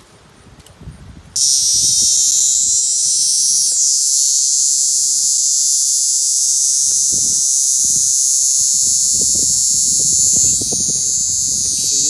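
A cicada's loud, steady, high-pitched buzz that starts suddenly about a second and a half in. It is the alarm buzz of a cicada just caught and held in the hand.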